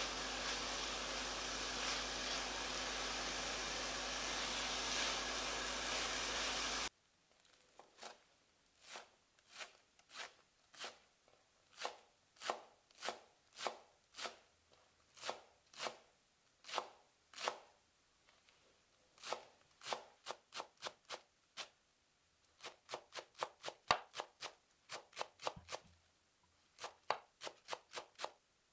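A steady hiss for the first several seconds that cuts off abruptly, then a kitchen knife chopping on a cutting board as mandu filling ingredients are prepared: separate sharp strokes at about two a second, with a short pause and a quicker run of strokes near the end.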